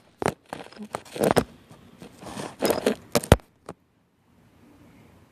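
Close scraping and rustling with a string of sharp clicks and knocks, the sound of the recording phone being handled and moved about. It stops abruptly about three and a half seconds in.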